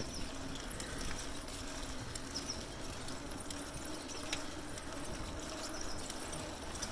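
A bicycle being ridden across a street: a steady rushing noise of rolling and moving air, with a faint low hum and a few light ticks.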